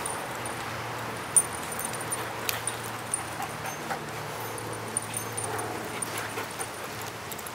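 Dogs playing rough together, giving short whimpers and yips among scattered sharp clicks and scuffles, the loudest click about a second and a half in, over a steady low background hum.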